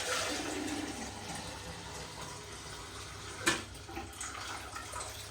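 Water rushing out of a Kohler toilet's tank during a repair, starting loud and easing off, with a sharp knock about three and a half seconds in.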